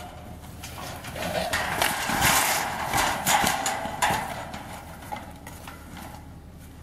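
White-tailed buck scrambling in a panel hog trap, its hooves knocking and scuffling on the ground and against the panels. The loudest stretch comes about two to four seconds in, then it dies down.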